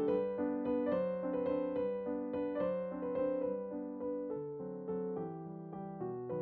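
Background instrumental music: a melody of steadily paced notes over held lower notes.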